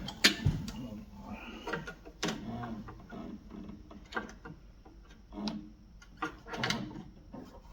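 Scattered clicks and knocks of hand tools and small metal parts being handled while working on a snowblower's fuel line and carburetor, the sharpest just after the start.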